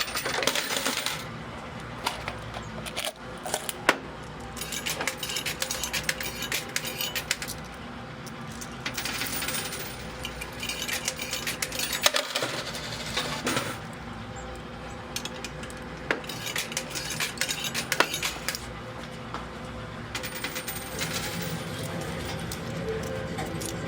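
Quarters clinking and clattering in irregular bursts, with an occasional sharp single clink, over a faint steady machine hum.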